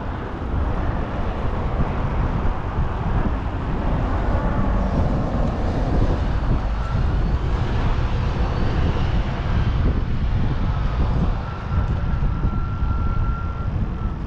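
Steady low outdoor rumble of wind buffeting the microphone and road traffic. A faint high steady tone sounds for a couple of seconds near the end.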